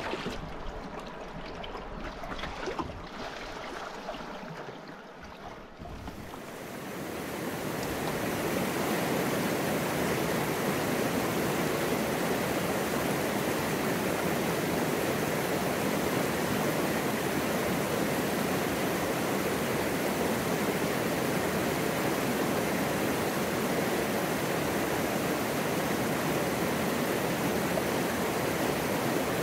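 Rushing water of a river stream. It swells up over a couple of seconds about six seconds in after a quieter, uneven opening, then runs as a steady, full rush.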